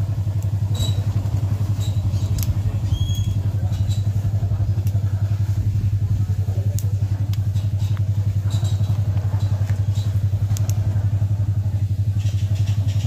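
Cashew seeds burning in their oily shells in a pan over a wood fire, giving off scattered sharp crackles and pops. Under them runs a steady, low, rapidly pulsing drone.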